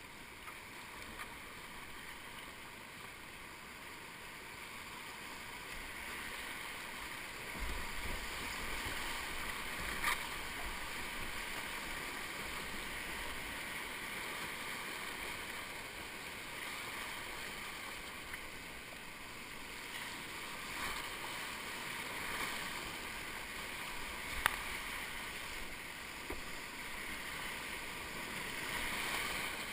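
Rushing whitewater of a rocky mountain river heard from a kayak running rapids, swelling and easing as the boat moves through the drops. Two sharp knocks stand out, one about ten seconds in and one near twenty-five seconds.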